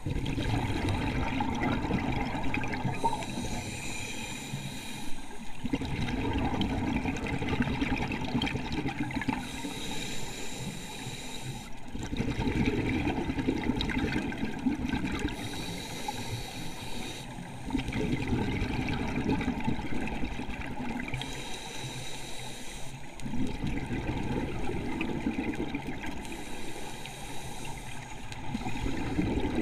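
Scuba diver breathing through a regulator underwater. Each breath is a hiss on the inhale, then a rush of bubbles on the exhale, about five breaths, one every six seconds or so.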